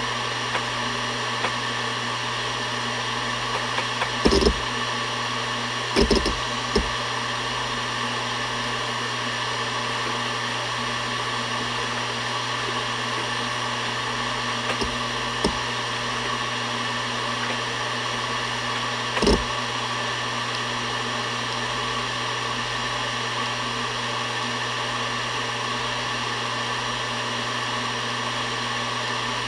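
Seagate Barracuda ES.2 ST31000340NS 7200 rpm hard drive spinning with a steady hum and hiss, its heads seeking now and then with short knocks, the louder ones about four, six and nineteen seconds in.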